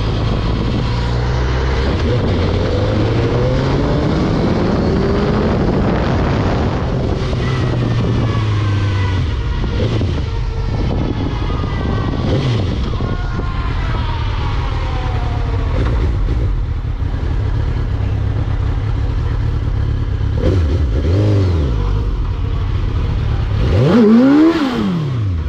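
Sport motorcycle engine pulling hard under acceleration, its pitch climbing through the revs several times as it shifts up through the gears. Near the end the revs rise and fall sharply once.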